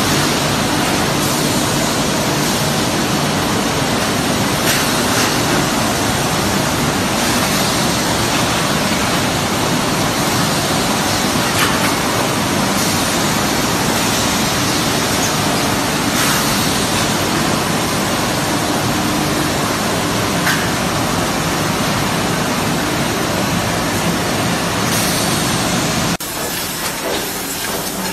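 Steady, loud machinery din of stainless steel tube mills running, with a low hum underneath and a few faint clicks. About two seconds before the end the noise changes abruptly and drops a little.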